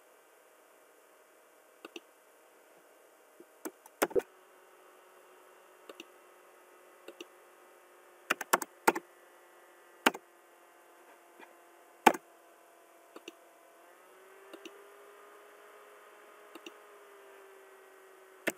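Sharp clicks of a computer mouse button, a dozen or more scattered irregularly, several in quick pairs, over a faint steady electrical hum.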